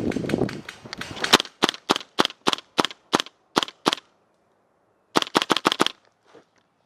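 Airsoft gun firing: a dense rapid burst at the start, then single shots about three a second for a few seconds, and a short quick burst of about six shots near the end.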